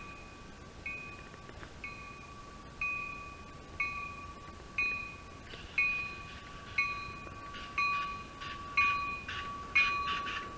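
An approaching Amtrak Downeaster train's bell ringing about once a second, each strike growing louder as the train nears.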